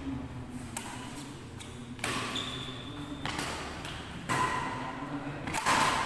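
Badminton rackets hitting a shuttlecock in a rally, about five sharp hits spread over the few seconds with the loudest near the end, mixed with short squeaks.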